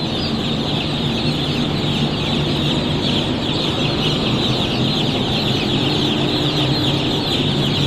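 A large flock of broiler chicks cheeping continuously, a dense wash of many overlapping high peeps. A steady low machine hum from the shed's heater and fan runs underneath.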